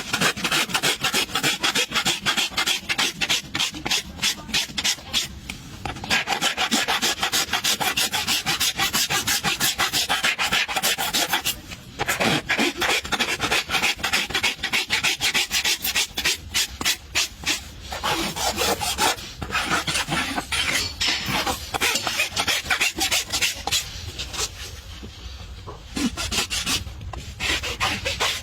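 Farrier's rasp filing a horse's hoof in rapid back-and-forth strokes, a steady rough scraping with short pauses between runs.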